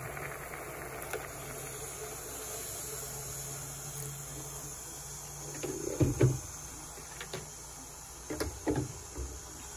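Water poured from a plastic gallon jug into a metal pan of sausage pieces, the pour stopping about five seconds in. The loudest sounds are two thumps about six seconds in, with a few lighter knocks near the end.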